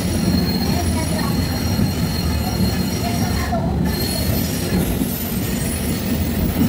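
Streetcar running on its rails: a steady low rumble with a high, steady squeal of the steel wheels on the track.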